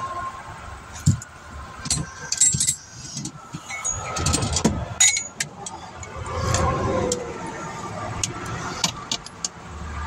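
Sharp clicks and jangling rattles close to the microphone, over the rush of highway traffic going past a vehicle stopped on the shoulder, swelling as vehicles pass about four and six seconds in.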